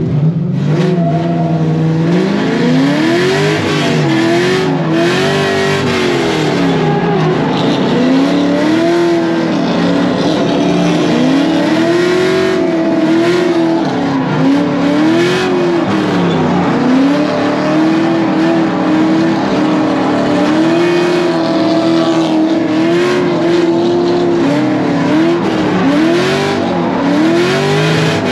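Corvette V8 drift car heard from inside the cabin, revving up and down repeatedly in rising and falling sweeps every second or two through a drift run, with tires squealing.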